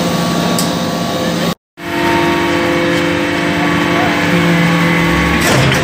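Hydraulic metal-chip briquetting press running: a steady mechanical hum with several steady tones from its hydraulic pump and motor, broken by a brief gap about a second and a half in.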